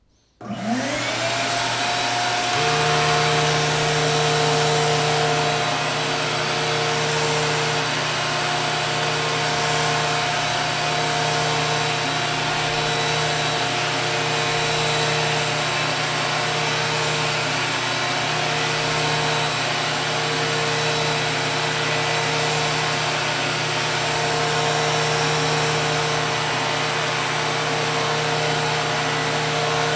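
Vacuum cleaner driving a Flowbee haircutting attachment, switching on with a quickly rising whine that settles into a loud, steady hum and rush of air. A second, lower steady motor tone joins about two and a half seconds in as the clipper head runs against the hair.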